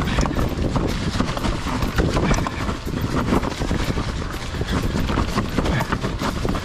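Santa Cruz Megatower full-suspension mountain bike riding fast down a rough dirt trail: tyres rolling over dirt and leaves, with a dense, continuous rattle of clicks and knocks as the bike goes over bumps.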